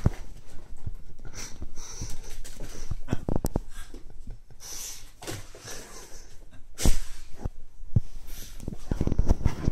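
A dog sniffing and snorting in short, breathy bursts as it noses at a small RC helicopter, with scattered knocks and thumps; the loudest thump comes about seven seconds in.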